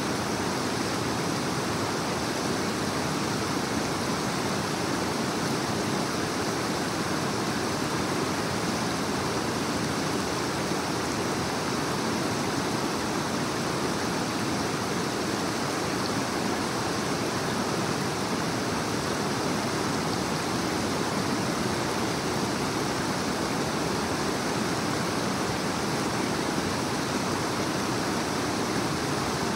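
Creek water rushing over rocks and small rapids, a steady, unbroken rush.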